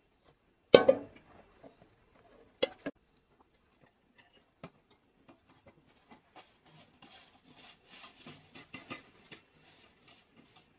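A sharp knock about a second in and two lighter knocks a couple of seconds later. Then a run of light, irregular footsteps on a dirt path with dry leaves.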